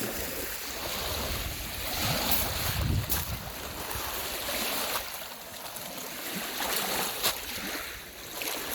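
Lake Superior waves washing onto the shore, with wind rumbling on the microphone and a couple of sharp clicks.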